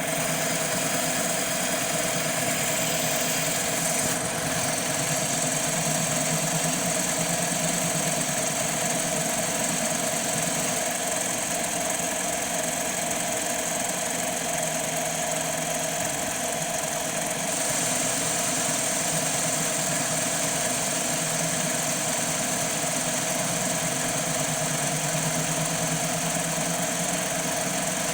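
CNC mini lathe running steadily while dry-turning a radius on an aluminum part with a carbide tool: a steady motor hum and whine, with the higher hiss shifting about four seconds in and again past the middle.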